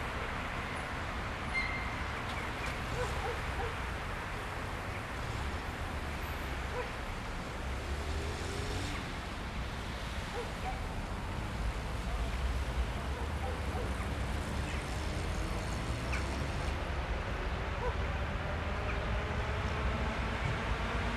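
An ER2I electric multiple unit approaching in the distance: a steady low rumble and hiss. In the last few seconds a faint hum of several tones rises in pitch as the train draws nearer.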